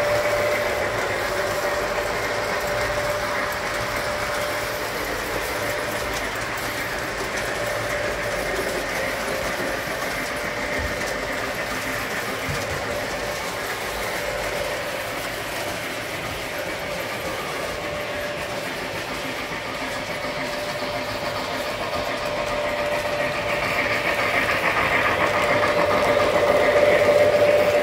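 O gauge model trains running on their track: a steady rolling clatter of wheels on rail with a constant motor hum, growing louder near the end as freight cars pass close by.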